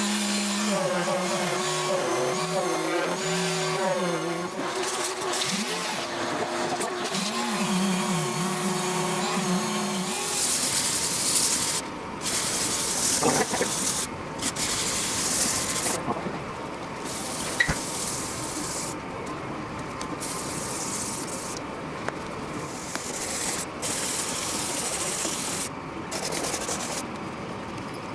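Power sander running against paint and gel coat on a propeller hub. For about the first ten seconds its motor hum wavers up and down in pitch, then it turns into a harsher, steadier sanding hiss that stops briefly several times.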